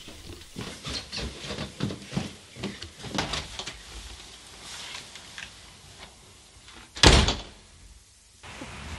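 Footsteps on carpeted stairs and a hallway, then a white panelled front door with a letterbox slamming shut about seven seconds in.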